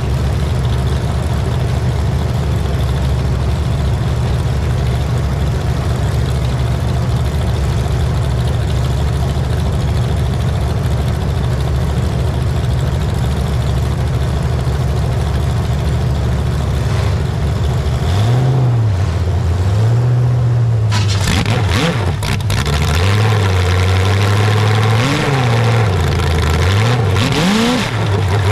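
Engine running at a steady idle, then revved up and down several times over the last ten seconds, with a harsher rushing noise joining in about two-thirds of the way through.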